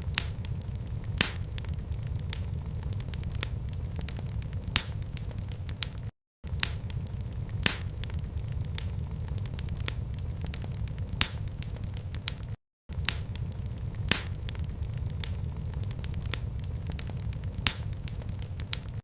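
Wood fire crackling: scattered sharp pops and snaps over a steady low rumble. The sound drops out to silence for a moment twice.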